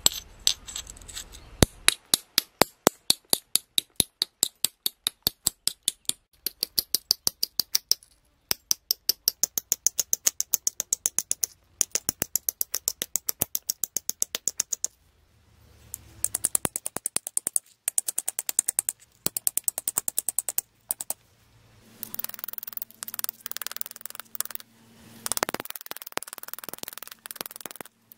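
A pebble hammerstone tapping the edge of a flint flake that rests on an anvil stone, in quick, even light blows about four to five a second, in runs of a few seconds: percussion retouch shaping a flint arrowhead. Near the end the strokes turn denser and rougher, more like scraping along the edge.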